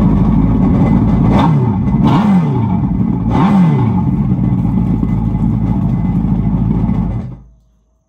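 2004 Yamaha WaveRunner FXHO's four-cylinder four-stroke engine idling, with the throttle blipped three times in the first four seconds so the revs rise and fall, then stopping about seven seconds in.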